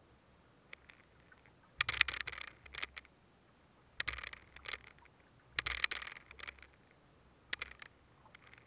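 Fishing handline being worked by hand in repeated pulls: four bursts of scraping and rustling with sharp clicks, roughly every two seconds, the first the loudest.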